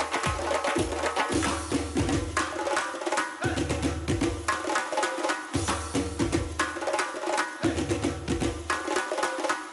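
An ensemble of Uzbek doira frame drums playing a fast festive rhythm. Deep bass strokes alternate with sharp slaps and the jangle of the drums' metal rings.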